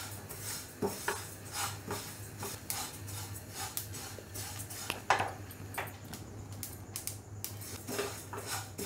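Sesame seeds dry-roasting in a non-stick kadhai, stirred and scraped continuously with a spatula, with many small irregular crackles as the seeds begin to pop: the sign that the roasting is well along.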